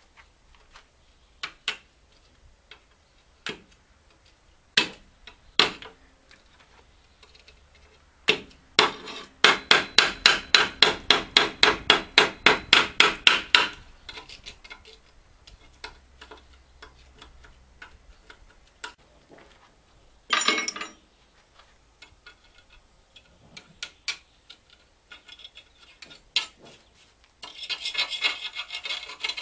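Hand tool rasping and scraping on the pellet boiler's metal burning head to clear clinker from its blocked air holes. Scattered knocks and clicks are followed by a fast run of about twenty rasping strokes, about four to five a second, then a short scrape and another stretch of rasping near the end.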